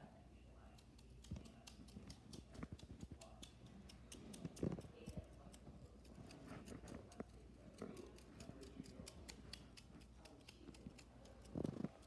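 Near silence: faint rubbing of fabric against the microphone, with a scatter of soft clicks and a few soft bumps.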